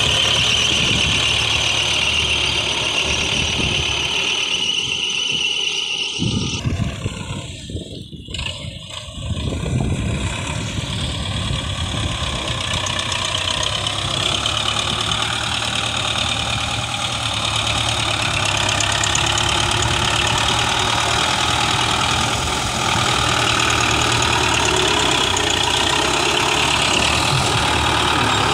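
Belarus 510 tractor's diesel engine running steadily while it hauls a loaded soil trolley, with a brief dip in loudness about seven to nine seconds in.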